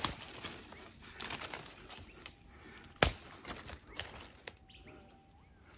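Footsteps and rustling through forest leaf litter and brush, with twigs snapping: two sharp snaps stand out, one right at the start and a louder one about three seconds in.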